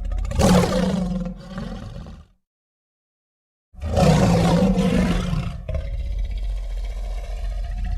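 Two monster roar sound effects: the first dies away about two seconds in, and after a short silence a second, longer roar starts and holds on.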